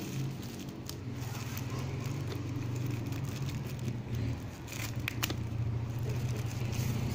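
Clear plastic packaging bag crinkling as it is handled, with a couple of sharp crinkles about five seconds in, over a steady low hum.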